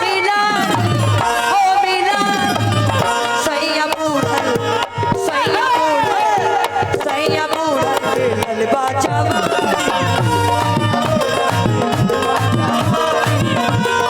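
Music with tabla drumming, a steady repeating drum beat under a wavering melody line.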